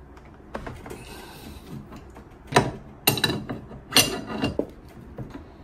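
Wrench clicking and clinking on the metal fitting as a pressure transducer is unscrewed from an espresso machine's hot water spout: a few sharp metallic clinks, two of them ringing, around three to four seconds in.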